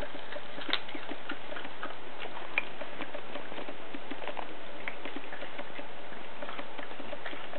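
A cat biting and chewing on a whole raw rat: irregular small wet clicks and crunches, over a steady hiss.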